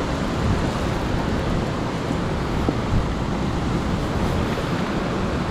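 Steady rush of water churning out at the base of a concrete dam.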